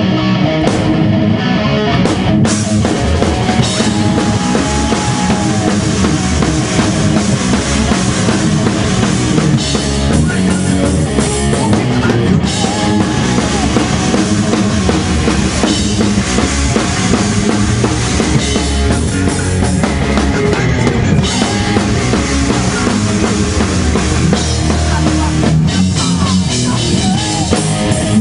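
Heavy metal band playing at full volume on distorted electric guitars over a rock drum kit.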